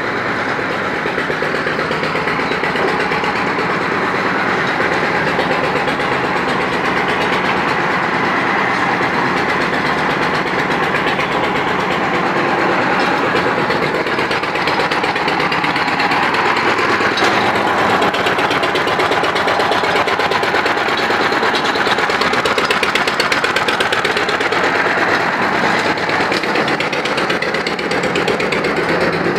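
A diesel engine running steadily: a loud, even mechanical clatter that holds the same speed throughout.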